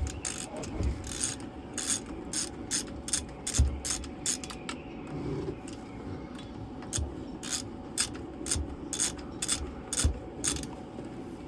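Hand socket ratchet clicking in short repeated strokes, roughly two or three clicks a second, while an engine mount bolt is worked loose.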